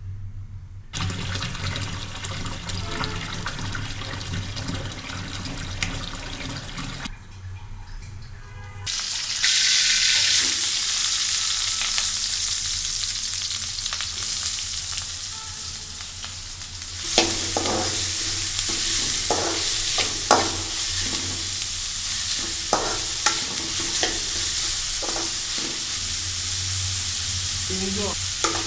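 Instant noodles frying in a pan, a steady sizzle that grows louder about a third of the way in. From a little past halfway a spoon stirs them, scraping and knocking against the pan again and again.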